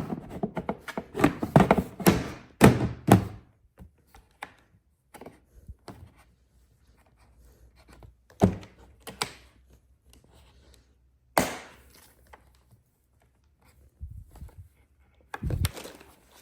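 Plastic parts of a kids' ride-on truck kit being taken out and set down: a quick run of knocks and thunks at first, then scattered clicks and a few single thunks, one louder near the middle and a short cluster near the end.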